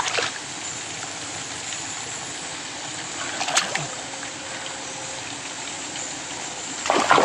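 Shallow water trickling steadily through a swamp channel, with one brief sharp sound about halfway through and louder disturbances of the water near the end.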